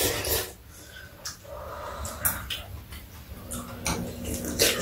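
Ramen noodles being slurped and eaten from bowls with chopsticks: a few short, wet slurps, the loudest near the end.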